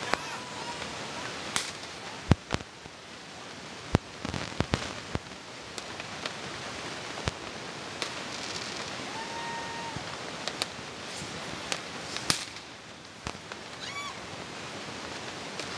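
New Year's fireworks and firecrackers going off all around: sharp bangs at irregular intervals, the loudest about two seconds in, over a constant background of more distant fireworks. Short whistling tones come in the middle and near the end.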